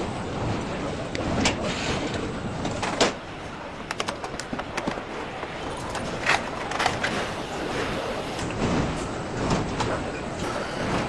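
Car assembly-line noise: a steady mechanical din from the conveyors and machinery, broken by scattered sharp clicks and clanks of tools and parts, with a quick run of clicks about four seconds in.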